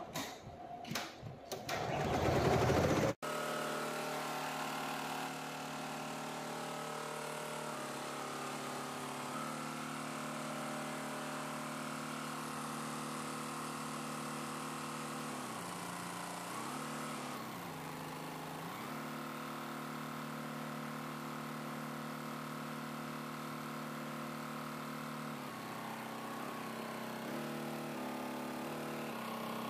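Multi-head computerized embroidery machine running and stitching, a steady mechanical hum that dips in pitch and comes back up about halfway through and shifts several times near the end. It opens with about three seconds of louder noise that cuts off abruptly.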